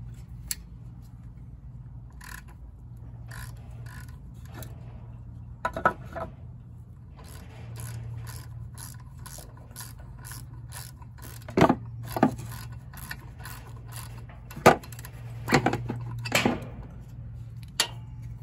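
Socket ratchet clicking in a regular run of strokes as the bolt on a John Deere Gator XUV550's drive clutch is turned, with the clutch held by a wedged block of wood. Several sharp knocks of tool and wood against the metal clutch come in the second half, over a low steady hum.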